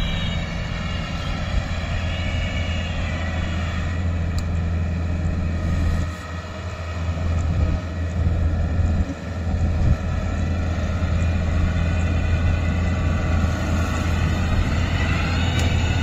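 Yanmar combine harvester's diesel engine running steadily with a deep hum as the machine travels over the paddy, joined by a higher mechanical whine that bends in pitch near the start and again near the end. The loudness wavers for a few seconds around the middle.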